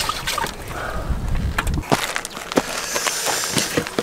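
Water sloshing with a run of small clicks and knocks from handling fishing gear at the water's edge, heaviest in the first two seconds.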